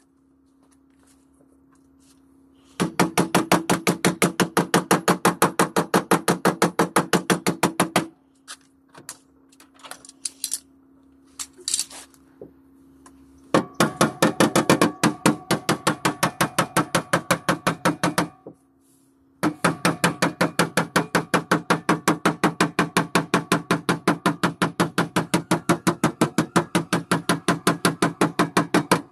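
Body hammer tapping rapidly on a car's dented steel side panel while a dent puller holds tension on a wavy wire welded along the crease, working the damage out. There are three long runs of quick, even taps, with a few scattered light taps between the first two runs.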